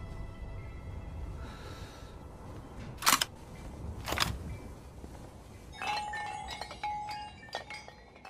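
Two short, sharp whooshes about a second apart over fading music. From about six seconds in, glass bottles clink and tinkle with light ringing tones.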